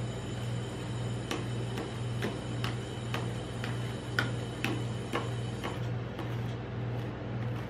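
Metal spatulas tapping and scraping on a steel cold plate as they spread a thin layer of rolled ice cream: about two sharp taps a second that stop a little before the end, over a steady low hum.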